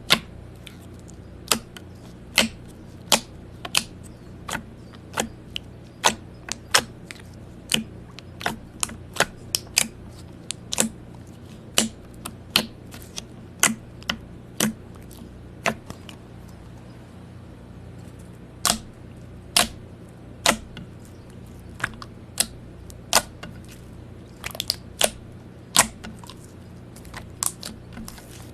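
Slime being handled and pressed, giving irregular sharp clicks and pops, about one to three a second with a short pause partway through, over a steady low hum.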